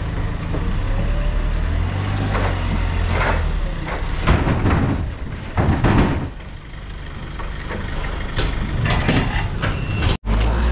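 Engine running steadily under a series of wooden clatters and knocks, loudest about halfway through, from empty wooden pallets being thrown down and a hand pallet truck being worked over the trailer floor. The sound cuts off abruptly near the end.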